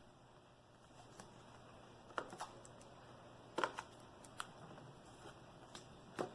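Small sharp clicks and taps from fingers working a laptop screen's ribbon cable connector into its socket on the back of the panel, a few louder clicks among fainter ones.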